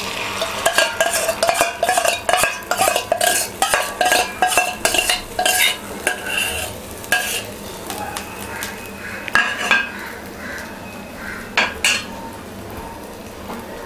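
Beaten egg frying in a small metal pan on a gas flame, sizzling as it cooks, while a metal spoon scrapes and clinks against the pan to spread it. The spoon clicks come thick and fast for most of the time, then thin out near the end, leaving the sizzle.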